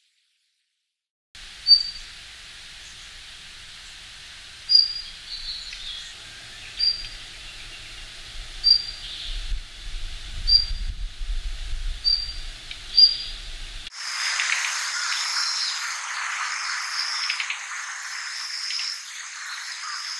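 Daurian redstart calling: seven short, sharp, high single notes spaced one to three seconds apart. About 14 seconds in, the sound changes abruptly to a dense, continuous chirring of insects with a regular pulse.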